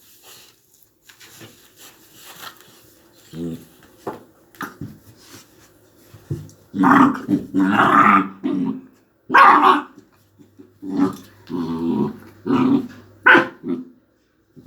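Two-month-old Central Asian Shepherd puppy growling and barking in short bursts while playing. The calls are faint and sparse at first and become louder and more frequent about halfway through.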